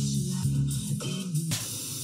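Braun Regie 450S receiver tuned across the band: music from a broadcast station plays, then about one and a half seconds in it gives way to a steady hiss between stations as the tuning moves off it.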